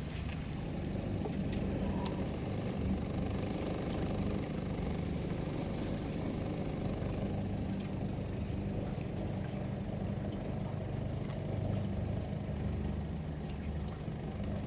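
Steady low engine drone, an even rumble that holds throughout.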